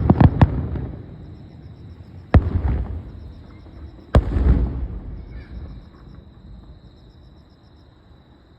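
Fireworks bursting: a quick run of sharp cracks at the start, then two single heavy booms about two seconds apart, each followed by a low rumbling echo that dies away.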